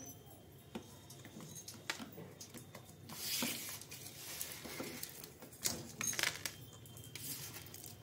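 Alexandrine parakeet feeding from a bowl of soft rice and green chilli: scattered small clicks and soft rustles of its beak working the food, louder for a moment about three seconds in and again around six seconds.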